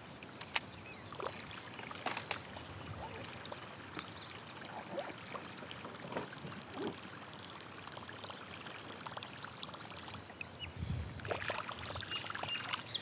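Small waves lapping and trickling against a kayak hull, with a few sharp clicks, the loudest about half a second in, and a few short high chirps.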